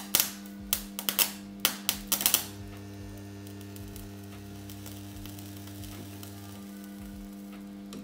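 Two microwave oven transformers humming steadily under heavy load while a screw shorted across their output glows red hot. Over the first two and a half seconds there is a run of sharp crackling snaps, the sparking of bad connections at the output terminals.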